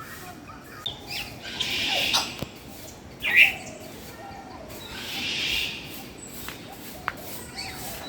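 Birds calling: several harsh, raspy squawks, with one short, loud squawk about three and a half seconds in, over fainter chirping.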